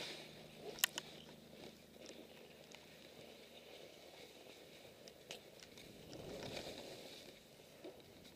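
Skis sliding through soft snow, a faint steady hiss, with a few sharp clicks: two about a second in and one near the five-second mark.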